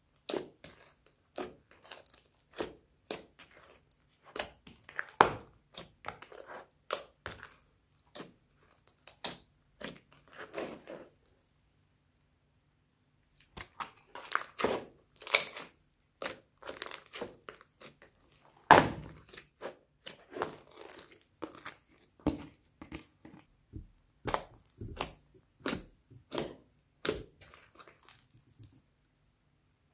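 Hands kneading, squeezing and stretching a large mass of mixed slime, giving a run of irregular wet squishing pops and crackles. It breaks off for about two seconds near the middle.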